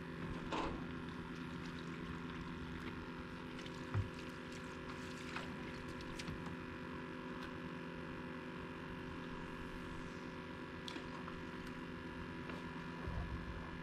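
A steady electrical hum made of several layered tones, with a single low thump about four seconds in.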